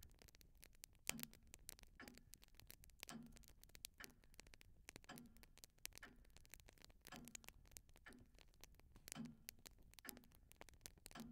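Faint, steady ticking of a clock, about one tick a second, with fainter irregular clicks in between.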